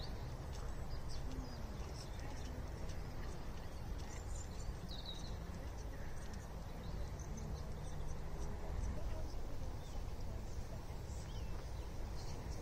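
A horse walking on a loose arena surface, its hoofbeats soft and steady, with small birds chirping now and then.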